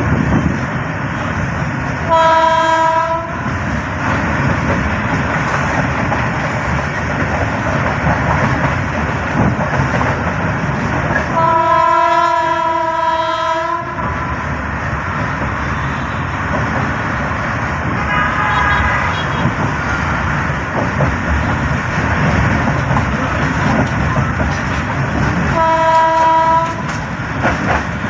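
Running noise of a moving passenger train heard from one of its coaches: wheels on the rails and carriage rumble, with a train horn sounding four times. There is a short blast about two seconds in, a long blast of about two and a half seconds around the middle, a fainter one after it, and another short blast near the end.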